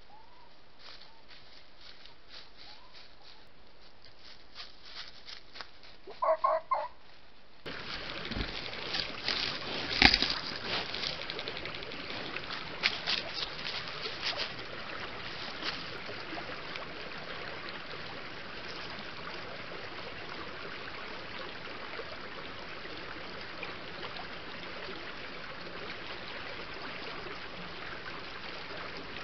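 A small woodland stream running steadily, with a few sharp knocks in its first several seconds. Before it, faint light ticking and rustling, and a short burst of loud pitched calls about six seconds in.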